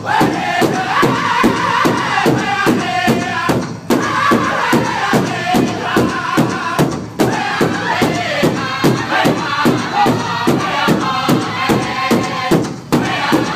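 A powwow drum group singing together in chant-like phrases over a steady beat struck in unison on a large powwow drum, about three strokes a second. The singing breaks off briefly between phrases three times while the drumbeat keeps going.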